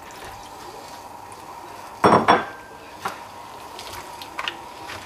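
Marinated chicken wings being put into a frying pan lined with a non-stick cooking sheet: a short, loud wet clatter about two seconds in, then a sharp tap and a few faint ones.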